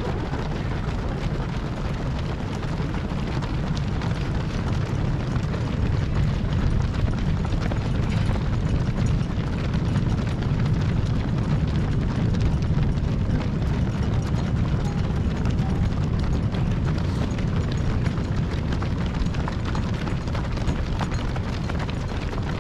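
Steady low rumble of wind buffeting the microphone, with the scattered patter of a stream of marathon runners' footsteps going past.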